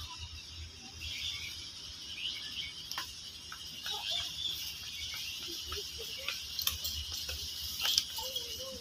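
Steady high-pitched insect chorus, with a few sharp clicks, the loudest about eight seconds in.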